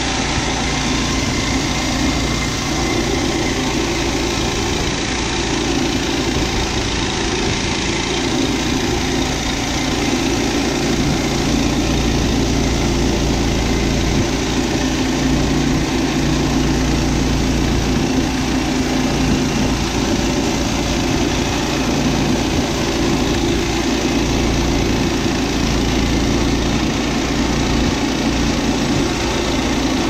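Woodland Mills HM122 portable bandsaw sawmill running steadily under load, its gas engine driving the band blade through a fir log. Wind buffets the microphone.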